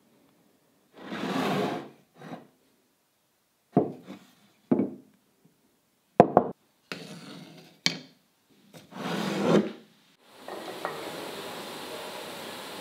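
Wooden block handled on a wooden tabletop: several scrapes and sharp knocks of wood on wood. From about ten seconds in, a steady machine noise starts.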